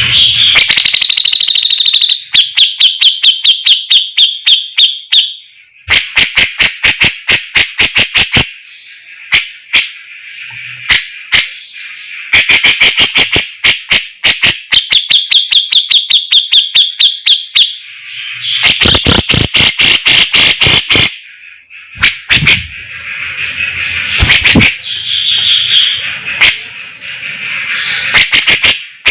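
Javan grey-cheeked bulbul (cucak jenggot) singing loudly: fast runs of sharp repeated notes, several a second, mixed with high trills and whistles, broken by short pauses between phrases.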